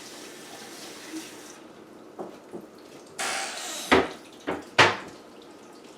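Kitchen clatter: several sharp knocks of cookware being handled, the loudest two near the end, with a short rush of running water about three seconds in.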